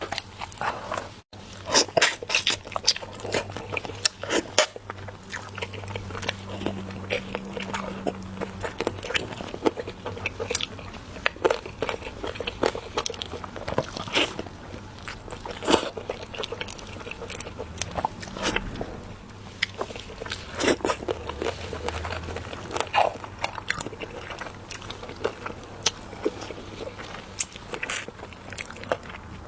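Close-miked eating sounds: a person biting into and chewing kiln-roasted chicken, with many irregular wet clicks and crunches.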